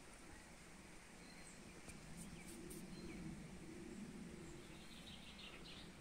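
Faint woodland ambience with short, high bird chirps now and then. A few light crackles a little over two seconds in and soft rustling, from footsteps on dry leaf litter.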